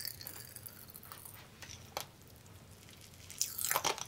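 Pop Rocks candy crackling and popping in a child's mouth as she eats it: scattered small pops, then a denser run of crackles near the end.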